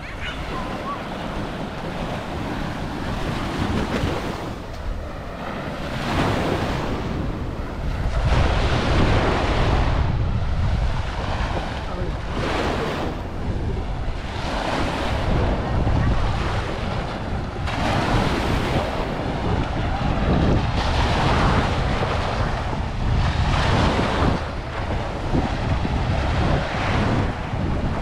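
Small ocean waves breaking and washing up the sand, in surges every couple of seconds. Wind rumbles on the microphone, heavier after the first several seconds.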